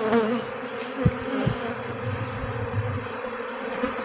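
A honeybee swarm buzzing in a steady, dense hum, the bees agitated and stinging. A couple of short low knocks come about a second in.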